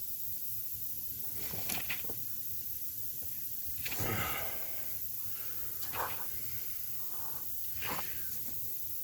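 Steady background hiss with four short, breathy puffs of a person's breathing, about two seconds apart.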